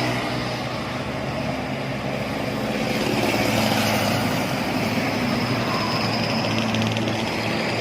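Heavy diesel vehicle passing on a highway: engine drone over tyre and road noise, growing louder about three seconds in and then holding.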